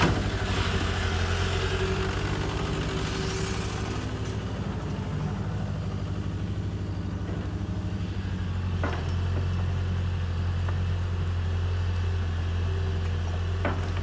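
Kobelco excavator's diesel engine running steadily, its low hum growing louder just past the middle, with a few short sharp knocks.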